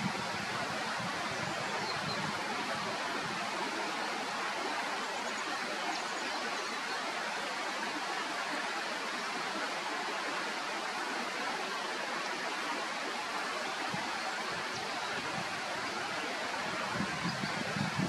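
Steady rushing of flowing stream water.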